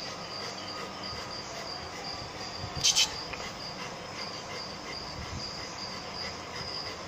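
Crickets chirping, a steady pulsing high trill, with two quick sharp clicks about three seconds in.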